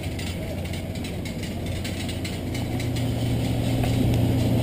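Steady low engine hum that grows louder about two and a half seconds in.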